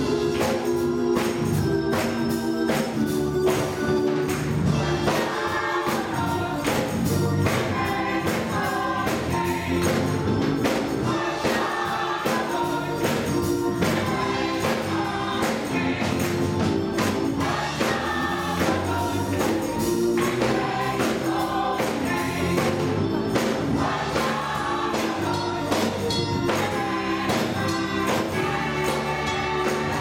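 Gospel choir singing an up-tempo song to organ accompaniment, with hand claps and tambourine on the beat. The voices come in strongly about five seconds in over the held organ chords.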